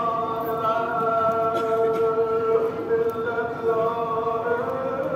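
Slow chanted singing in long held notes, the pitch shifting only now and then, over a faint even hiss.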